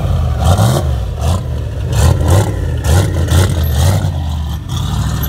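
Modified Fox-body Ford Mustang's engine revved hard in repeated short blips, about two a second, as the car pulls away.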